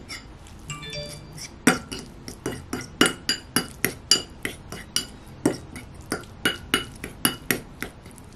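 Metal fork clinking and scraping against a ceramic bowl while mashing and mixing flaked canned sardines, a sharp clink about two or three times a second from about one and a half seconds in.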